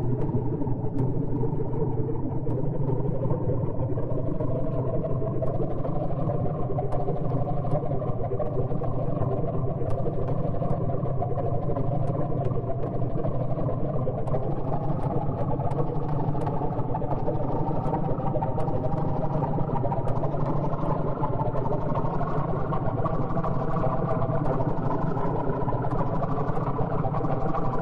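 Dense electronic drone of layered sustained tones over a heavy low hum, its upper layers slowly brightening and rising in pitch, with faint clicks recurring through it.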